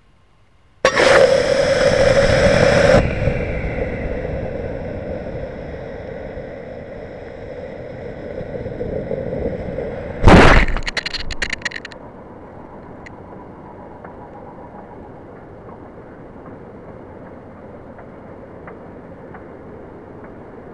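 Estes C6-7 model rocket motor firing, heard from a camera packed inside the rocket's body tube: a sudden loud rush about a second in that lasts about two seconds, then a fading rush of air as the rocket coasts. About ten seconds in the motor's ejection charge goes off with a loud bang, followed by a second or so of rattling as the camera is pushed out of the tube, then steady wind noise as it falls.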